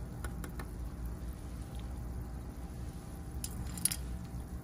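Aquarium air pump bubbling air through a bucket of compost tea, a steady low gurgle. A few light clicks of a plastic spoon come early, and a sharper click near the end as the spoon is set down.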